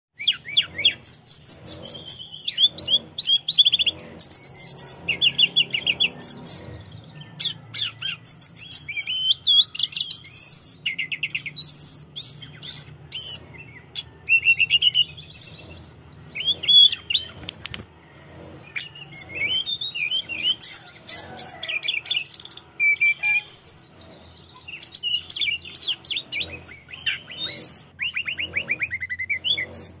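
Tledekan gunung, a blue flycatcher, singing vigorously in a cage. It gives rapid, varied high-pitched phrases of trills and quick warbled notes, one after another with only brief pauses.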